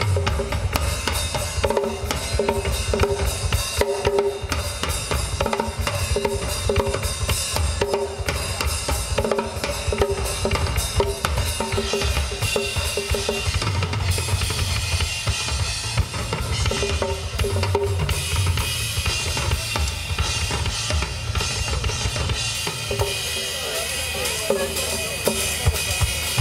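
Live drum solo on a full drum kit: fast, dense strokes around the toms and snare over bass drum, with Zildjian cymbals washing on top. The low drums grow heavier from about halfway through for a few seconds.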